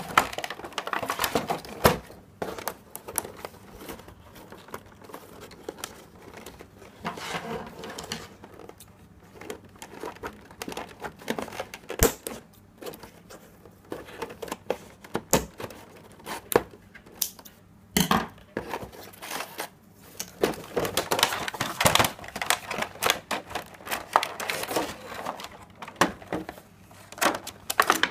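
Toy packaging being handled and opened: a clear plastic blister tray crinkling and crackling against cardboard, with many scattered clicks and snaps and scissors snipping wire twist ties.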